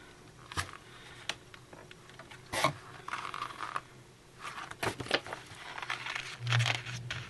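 Paper being handled: booklet pages and printed inserts rustling and flipping, with small taps and clicks against a table. A low steady hum comes in near the end.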